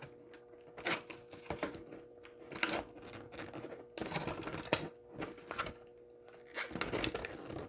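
Plastic blister packaging of a Hot Wheels car being handled and pried open: irregular clicks, taps and short crinkles.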